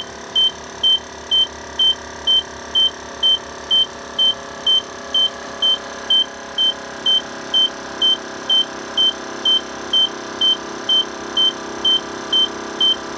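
Lincoln Mark VIII air-suspension compressor running steadily and building pressure to about 140 psi, its hum growing slightly louder as it works. A loud high electronic beep repeats about twice a second over it.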